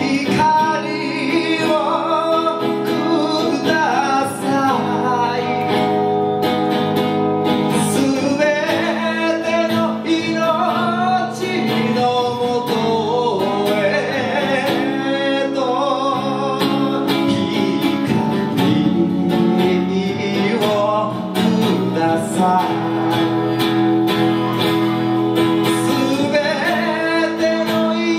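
A man singing a ballad in Japanese through a microphone and PA, with a guitar accompaniment.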